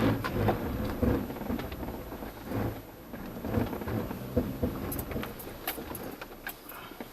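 Jeep Cherokee Trailhawk crawling over a rough, rocky trail: irregular low thumps and rumbles from the body and suspension, with crunching and crackling from the tyres on rock and gravel. Sharp clicks are heard in the last couple of seconds.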